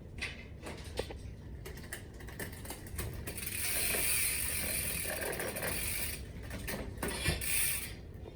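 Mountain bike freewheel ratcheting: a few scattered clicks, then from about three seconds in a continuous high buzz of the pawls for about three seconds as the drivetrain spins freely, and a shorter burst near the end.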